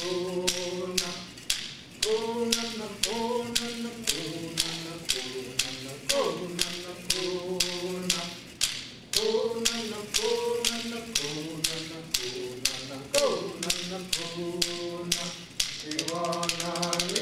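A Paiute song: one voice singing in repeated phrases that each start high and slide down, over a steady hand-percussion beat of about two strokes a second that quickens into a fast shake near the end.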